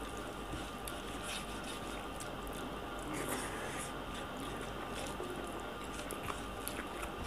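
Fingers squishing and mixing cooked rice with egg bhujiya on a plate, with small soft wet clicks scattered through, over a steady low hiss.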